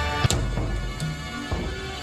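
Music with a dense, dark-sounding mix of held tones and sharp percussive hits about every half to three-quarters of a second.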